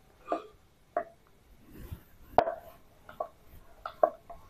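Wooden rolling pin rolling out wheat dough on a round wooden board, giving short irregular knocks and thuds as the pin moves and taps against the board, about eight in all. The loudest knock comes a little past the middle.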